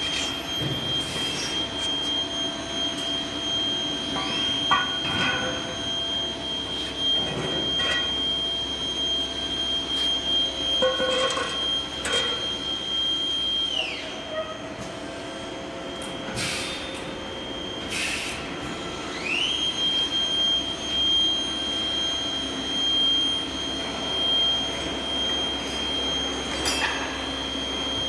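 GS-9740x1300 cylinder block and cylinder head grinder running, with a steady high whine over a steady hum. The whine winds down and stops about halfway through, then winds back up about five seconds later, with scattered clicks and clanks throughout.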